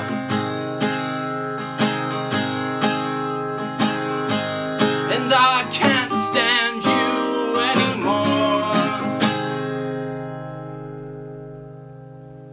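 Acoustic guitar strumming slow chords, about one a second, as the song ends, with a short wordless vocal line twice in the middle. The last chord, about nine seconds in, rings out and fades away.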